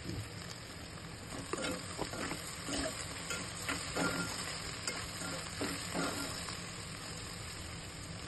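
Chopped okra frying in a steel pot while a spoon stirs it, scraping and knocking irregularly against the pot for a few seconds, over a steady sizzle.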